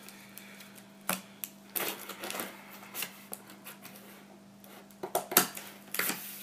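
Scissors cutting into the tape seal of a large cardboard box, with scraping and rustling of the cardboard as it is handled; a handful of short, sharp sounds, bunched together about five seconds in.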